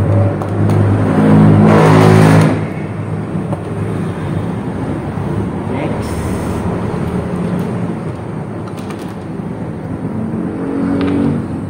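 A motor vehicle's engine passing by, loudest about two seconds in and then fading, over steady traffic noise.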